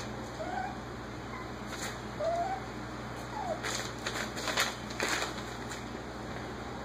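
Basenji puppies playing, giving three short squeaky yips, followed by a few scratchy rustles and scuffles from about halfway through.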